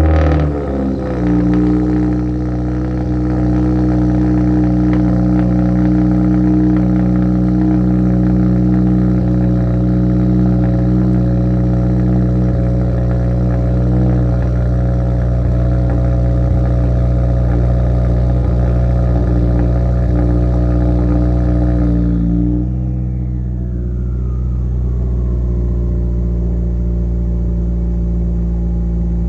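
2015 Subaru WRX's turbocharged 2.0-litre flat-four heard at its quad exhaust tips, just fired on a cold start: a brief flare at the start, then a steady fast cold idle. About 22 seconds in the idle steps down a little and gets slightly quieter, while a faint whine falls in pitch over a few seconds.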